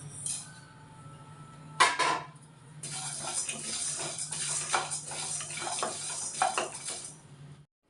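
Metal kitchen utensils clattering: a couple of sharp knocks about two seconds in, then about four seconds of continuous scraping with repeated clinks, which cuts off abruptly near the end.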